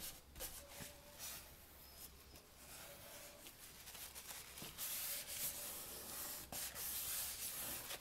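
Tissue rubbing over paper glued to cardboard, wiping away excess glue, with small ticks from hands on the paper; the rubbing grows louder about halfway through.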